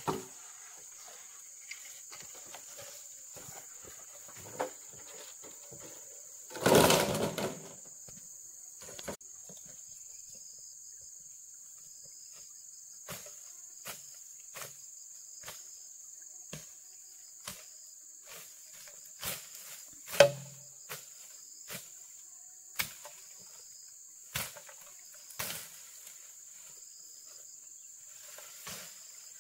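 Steady high-pitched drone of forest insects, with irregular sharp knocks and clacks from work going on close by. A louder rustling, scraping burst comes about seven seconds in, and one loud knock about twenty seconds in.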